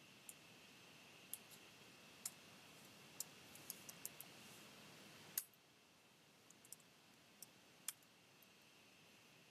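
Faint, irregular clicks of computer keyboard keystrokes and mouse clicks, about fifteen in all, over a low steady hiss; the loudest click comes about halfway through.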